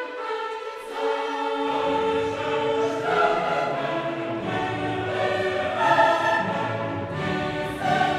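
Background music of a choir and orchestra, the choir holding sustained notes; a low bass part comes in about one and a half seconds in.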